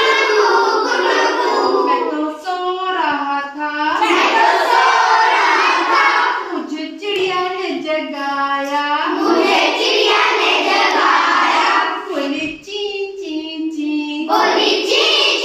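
Children singing or chanting together in unison, with long notes that glide up and down twice.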